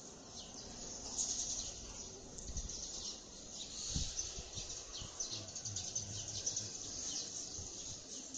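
Birds chirping outdoors: many short, high calls in quick succession, over a low rumble with a few soft low knocks.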